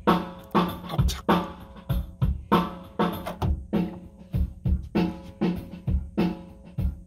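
Acoustic drum kit played in a steady beat, bass drum and drum strokes with cymbals, a couple of strokes each second, heard from outside the sound isolation booth's door.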